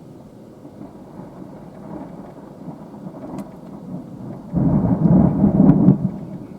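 Thunder rumbling from a high-precipitation supercell: a loud low rumble breaks in suddenly a little past halfway and ends about a second and a half later. Before it there is a steady low rush of wind and rain, with a few faint ticks.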